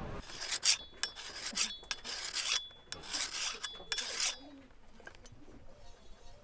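A metal blade being sharpened with a file: a run of quick rasping strokes, about two a second, with a faint metallic ring. The strokes stop about four seconds in.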